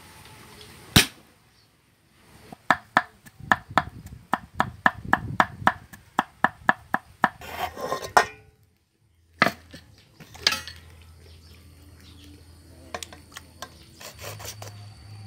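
Cleaver chopping garlic on a thick wooden chopping block: a fast run of sharp knocks, about four a second, that stops after about five seconds. A single knock and some scraping follow.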